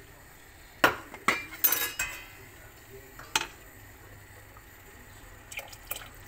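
Kitchenware clinking against a stainless steel cooking pot: a few sharp knocks and clanks with a brief metallic ring in the first two seconds, one more knock a second or so later, and two faint taps near the end.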